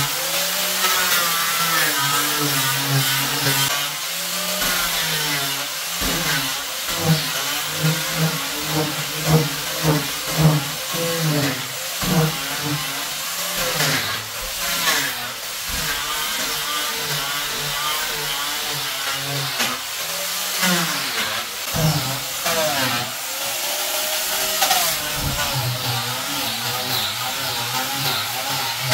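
Electric angle grinder fitted with a sanding pad, running against wooden floorboards: a steady motor whine whose pitch wavers up and down as the pad is worked across the boards, over a scrubbing hiss, with a few sharp knocks.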